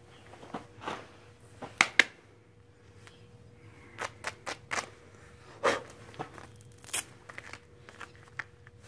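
HandsOn rubber-nubbed grooming gloves slapped and rubbed against each other, giving a run of sharp slaps and scuffs at uneven intervals; the loudest are two slaps close together about two seconds in. A faint steady hum runs underneath.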